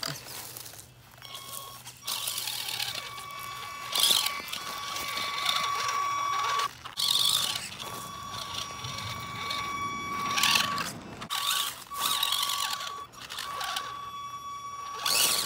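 HBX Transit RC crawler's electric motor and gearbox whining steadily, cutting out and coming back again and again as the throttle is worked, with short scrabbling bursts from its tires on dirt and leaves.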